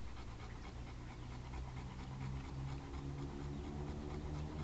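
A bulldog panting hard in quick, even breaths, each breath carrying a low throaty rasp.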